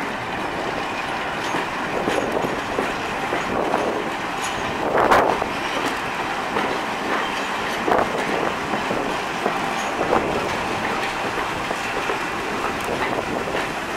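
Running noise of a railway passenger coach heard from on board: a steady rumble and clatter of wheels on rail, with a few sharp knocks over rail joints, the loudest about five seconds in.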